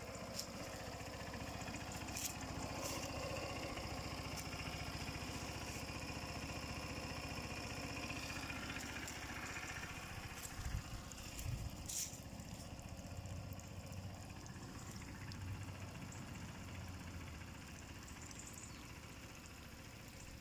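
A small engine running steadily at idle, with a few short knocks about halfway through.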